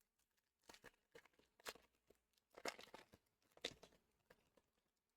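Faint rustling and crinkling of Pokémon trading cards and their foil packaging being handled, in about half a dozen short bursts.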